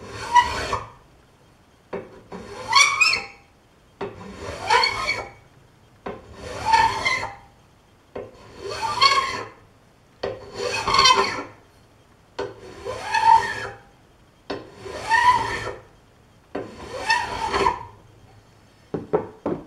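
Hand file pushed in slow, even strokes across the top edge of a metal plate clamped in a bench vise, squaring and smoothing the edge: about nine strokes, one every two seconds or so, with a few light clicks near the end.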